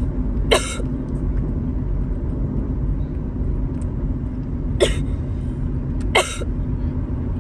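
Steady low rumble of a car heard from inside the cabin, broken by three short, sharp cough-like sounds, one about half a second in and two near the end.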